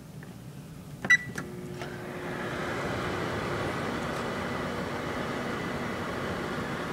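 Microwave oven keypad clicks and a short beep about a second in, then the oven starts and runs with a steady hum, heating an apple.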